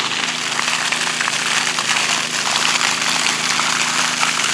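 Pressurised irrigation water spraying and splashing from a traveling irrigator's sprinklers and from an open pipe end being flushed of debris, with a steady low engine hum underneath.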